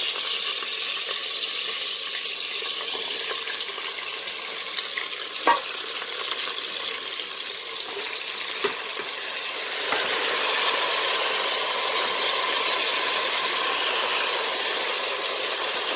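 Carabinero and prawn heads frying in oil in a pan, a steady sizzle with a couple of light clicks, growing a little louder about ten seconds in.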